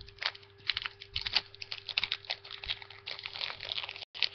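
Foil wrapper of a Pokémon trading card booster pack crinkling and crackling in a quick, irregular run as it is handled before being torn open.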